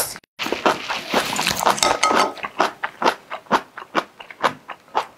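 Chopsticks clicking and scraping in a bowl of luosifen noodles as they are stirred, with crunchy chewing close to the microphone; in the second half the sharp crunches come about twice a second.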